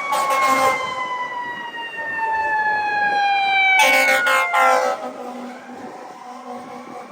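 Fire truck siren winding down in a long, slowly falling wail. Two short, loud bursts of noise come near the start and about four seconds in.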